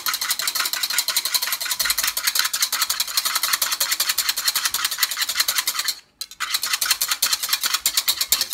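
Wire whisk beating egg whites in a plastic bowl by hand, a fast, even rattle of strokes against the bowl, stopping briefly about six seconds in. The whites are being whipped to a foam.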